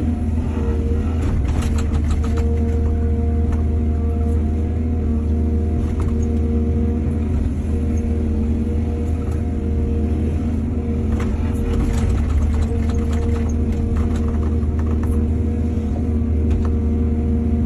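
Excavator's diesel engine running steadily with a low hum, with scattered clatters and knocks.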